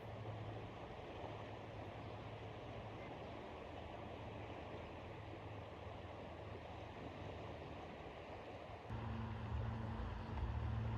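Steady rush of river water flowing. A louder low rumble joins near the end.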